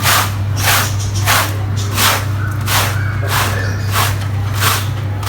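Carpet being washed: regular swishing strokes, about one and a half a second, over a steady motor hum.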